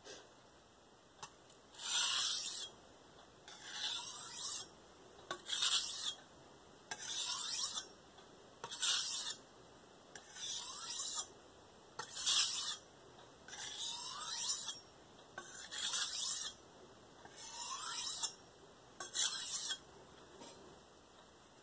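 Steel santoku blade drawn across a wet Shapton Pro 1000-grit whetstone in light, edge-leading refining strokes. There are eleven rasping strokes, each under a second, about one every second and a half to two seconds.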